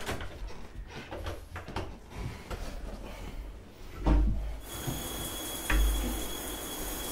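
Rustling, shuffling and small knocks of people moving about in a small room, then a heavy low thump about four seconds in, after which a steady hiss sets in.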